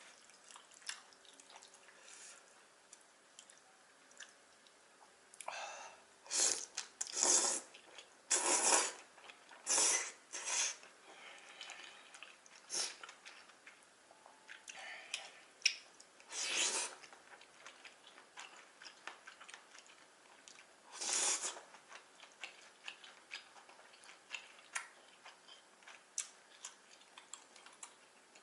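Close-miked eating of jajangmyeon: chewing with many small wet mouth clicks, broken by several short, loud slurps of noodles.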